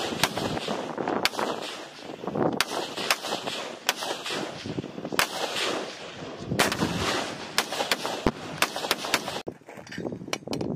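Small-arms rifle fire on a live-fire range: a string of sharp, irregularly spaced shots with echoes trailing after them, some louder and some fainter. The firing falls quieter about nine and a half seconds in.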